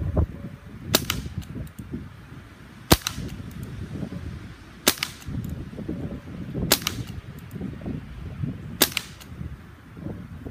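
Five shots from a Benjamin Wildfire .177 PCP air rifle, about two seconds apart, each a sharp crack followed by a faint tick or two. Gusty wind rumbles on the microphone throughout.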